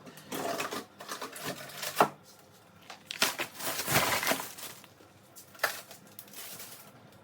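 Plastic food packaging and bags crinkling and rustling in bursts as items are handled, with a sharp knock about two seconds in.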